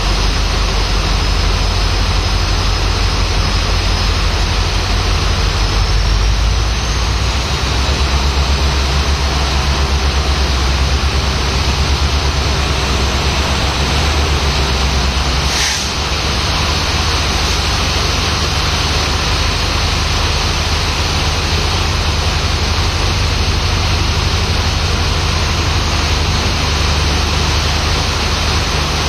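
Heavy rain pouring steadily, over the low, steady rumble of a diesel locomotive's two-stroke EMD engine running. A single brief knock sounds about halfway through.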